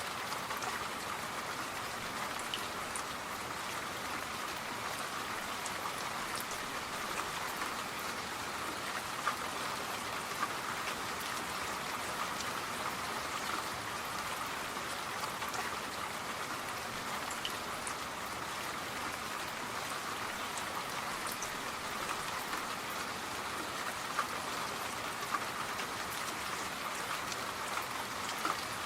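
Steady rain falling, an even hiss with scattered sharp ticks of individual drops hitting a surface.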